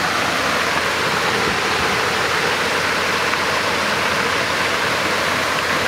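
Pond aerator churning and splashing the water: a loud, steady rush of water.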